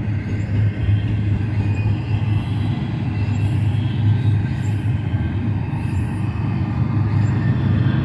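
Double-stack container train cars rolling past: a steady rumble of steel wheels on rail.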